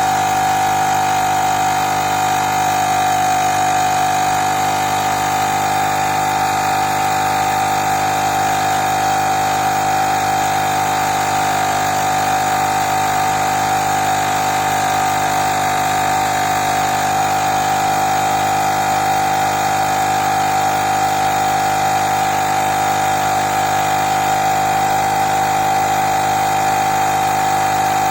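Portable electric tyre inflator's small piston compressor running steadily as it pumps up a motorbike tyre toward its preset target pressure, a loud even buzzing whine whose pitch edges up slightly as the pressure builds.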